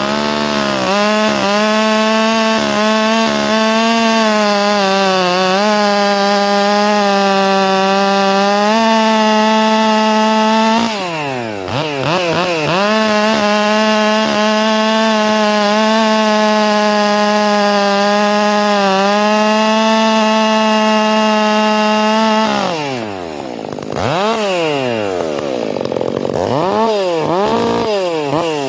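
Stihl MS 400 C two-stroke chainsaw, fitted with a Red Beard air filter, running flat out through wood. It holds high revs for about ten seconds, drops off briefly, and holds high revs again for about another ten seconds. Then the revs fall and it is revved up and down several times.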